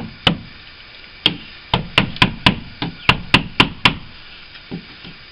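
Hammer tapping sharply on a window frame to chip out old, hard-set glazing putty: a couple of single blows, then a quick run of about four blows a second, then one lighter tap near the end.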